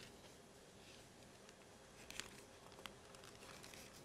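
Near silence, with a few faint rustles and ticks of thin Bible pages being turned, the clearest about halfway through.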